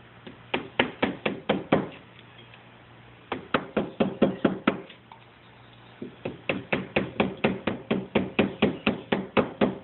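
Rapid knocking strokes, about five a second, in three runs with short pauses between: a rod tamping paper wadding down onto the black-powder charge in a small signal cannon's barrel.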